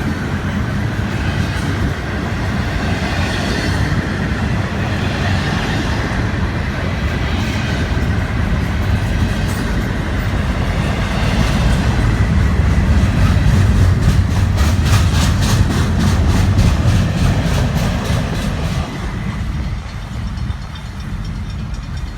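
Train cars rolling past close by, a steady rumble with the wheels clacking over the rail joints. The clacking grows louder and more rhythmic midway through, and the sound drops away near the end.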